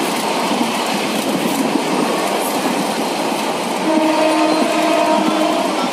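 Passenger train running at speed, heard from inside a coach at an open window: steady running noise of the wheels on the track. About four seconds in, a train horn sounds for under two seconds.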